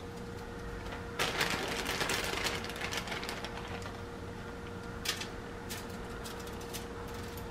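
Plastic zip-top bag full of crushed cornflakes crinkling and rustling as a hand digs flakes out of it, loudest for about two seconds near the start, then a few scattered crackles as flakes are pressed onto the chicken. A faint steady hum runs underneath.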